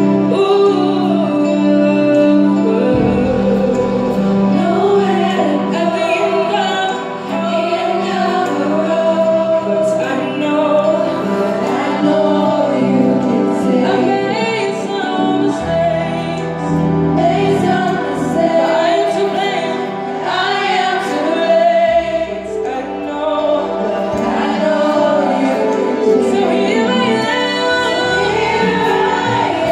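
A vocal group singing a gospel song into microphones, with wavering lead lines over sustained chords that change every few seconds, played through a church sound system.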